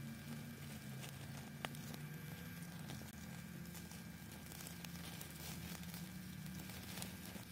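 Wood fire crackling in a small camping wood stove under beef steaks on a wire grill, over a steady low hum from the stove's battery-powered blower fan. One sharp pop about one and a half seconds in.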